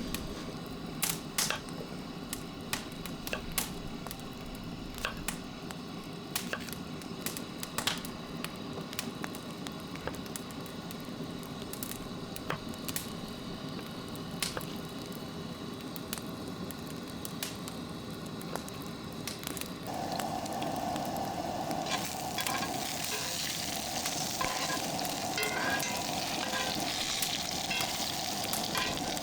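Sizzling with scattered sharp crackles and pops. About twenty seconds in it grows louder, with a steady hiss and a low hum joining.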